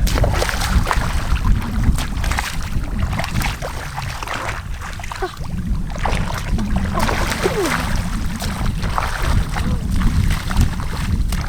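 Water sloshing and splashing under a steady low rumble of wind on the microphone, with scattered sharp clicks.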